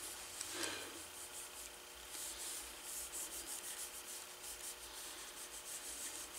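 Cloth rag rubbing leather conditioner into a leather handle: a faint, soft swishing in quick, short back-and-forth strokes, several a second.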